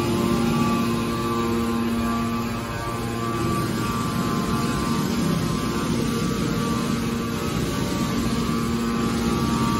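Hydraulic scrap steel baler running: a steady machine hum with a whine, which turns rougher and noisier for several seconds in the middle before the steady tone returns near the end.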